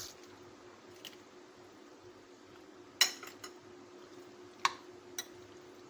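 Scattered clinks of kitchen utensils against dishes: a handful of sharp separate knocks, the loudest about three seconds in, over a faint steady hum.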